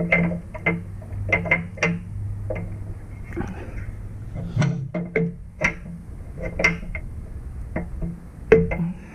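Steel mounting bracket clinking and knocking against the bumper and chassis as it is wiggled and worked into place: a string of irregular, sharp metallic clinks.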